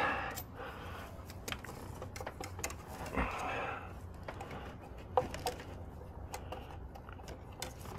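Scattered light clicks, taps and rustling of hands working among hoses and hose clamps in a truck's engine bay, with a brief louder rustle a little after three seconds.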